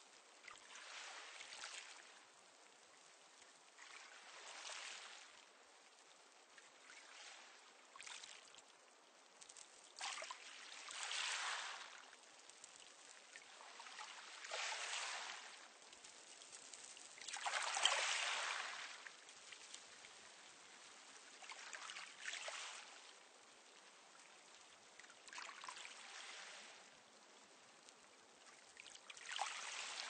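Small, calm sea waves washing onto a pebble beach, each one a brief hiss of water over stones arriving every three to four seconds, the largest a little past halfway.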